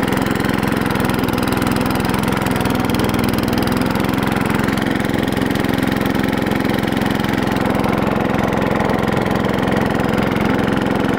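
Small Craftsman riding mower engine idling steadily, running through an exhaust pipe extended with drink cans.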